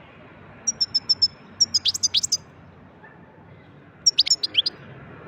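European goldfinch singing: two bursts of rapid, high twittering notes with a few quick downward slurs, the first lasting under two seconds and the second shorter, about four seconds in.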